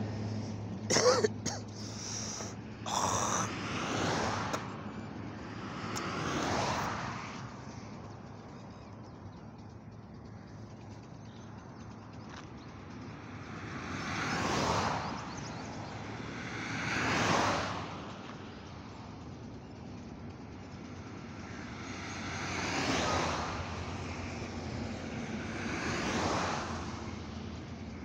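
Highway traffic heard from the roadside: vehicles pass one after another, each a rise and fall of tyre and engine noise, about six in all. A low engine hum dies away at the start, and a few sharp clicks come in the first three seconds.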